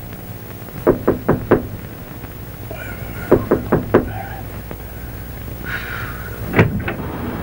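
Knocking on a wooden cabin door: four quick raps, a pause, four more quick raps, then two heavier knocks near the end.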